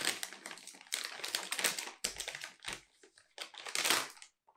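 A plastic snack bag being crinkled and torn open by hand, in a run of crackling rustles with louder tearing bursts near the start and again near the end.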